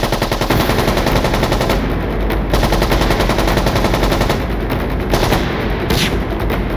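Rapid automatic gunfire, machine-gun fire running on without a break.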